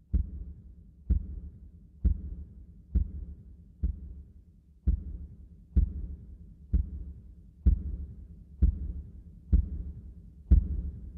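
A slow, steady pulse of deep thuds, about one a second, each hitting sharply and fading quickly, like a heartbeat, in the soundtrack.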